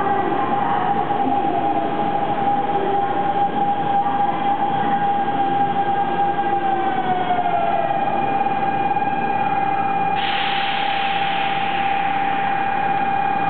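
Hanshin 5500 series electric train pulling into the platform and braking to a stop, its motor whine falling in pitch as it slows, over a steady high tone. About ten seconds in, a sudden burst of air hiss sounds as the train comes to rest, then fades.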